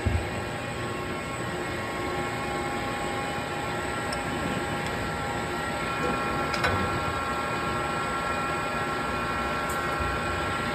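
Clausing Metosa C1440 gap-bed lathe running at a slow spindle speed: a steady hum with a whine of several held tones from its drive and gearing, and a few light ticks.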